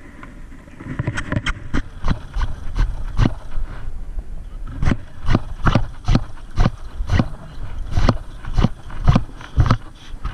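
Footsteps at a steady walking pace, about two sharp knocks a second, over a low steady rumble.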